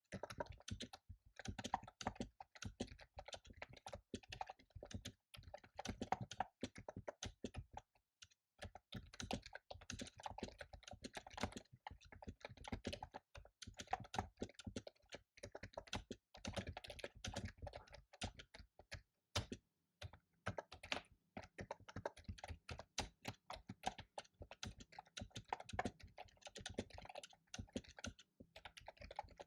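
Fast typing on a computer keyboard: dense runs of key clicks, broken by a few short pauses.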